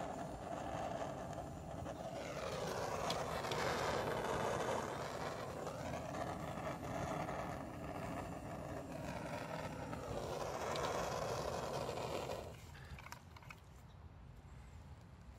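Handheld gas torch flame hissing steadily, shut off about twelve and a half seconds in.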